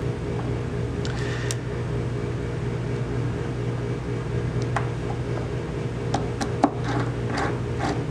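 Small metal parts of a lathe carriage lock (an aluminium clamp block, a steel plate, a spring and bolts) clicking and clinking lightly as they are handled and fitted together by hand. The clicks are few and scattered, mostly in the second half, over a steady low hum.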